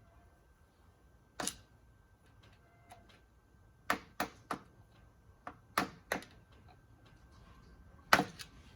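Sharp metal knocks, most likely hammer taps on a driveshaft universal joint and yoke during U-joint installation. About eight strikes come in twos and threes a third of a second apart, with the loudest near the end.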